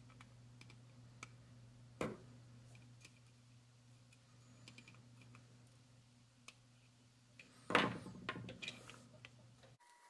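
Small flush cutters snipping the wire leads of a toroid transformer on a circuit board: a sharp snip about 2 seconds in and a louder cluster of clicks near 8 seconds, over a faint low hum that cuts off just before the end.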